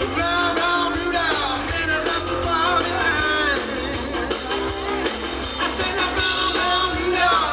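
Live rock band playing through a PA: a woman singing lead over acoustic and electric guitars and a drum kit.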